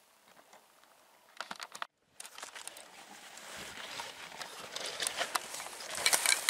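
Footsteps and rustling of clothing and dry scrub on stony ground: a few faint steps, a brief break, then a crackling, rustling run of movement with sharp clicks that builds and is loudest about six seconds in.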